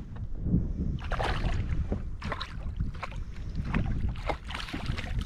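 Irregular short splashes of a hooked fish thrashing at the surface beside a kayak, over a steady low rumble of wind on the microphone.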